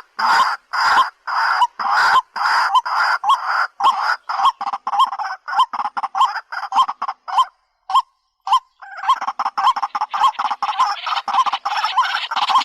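White-breasted waterhen (dahuk) calling in a repeated series of loud, croaking notes, about two a second at first and quickening, with a short break a little past halfway before a faster run resumes.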